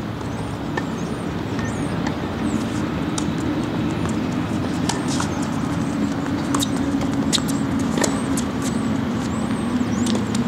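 A steady low engine-like hum of a motor running, growing slightly louder, with scattered faint high ticks and chirps over it.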